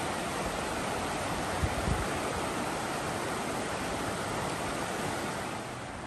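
Creek water rushing steadily over rocks and cobbles in a shallow riffle, an even hiss. A few brief low bumps come about two seconds in.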